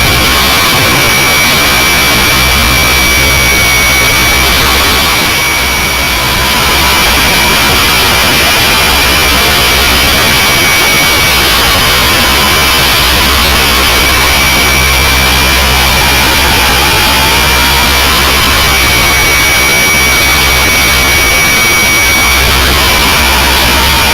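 Hirobo SRB radio-controlled helicopter heard through its onboard camera: a steady high motor whine over a loud, constant rush of rotor and wind noise.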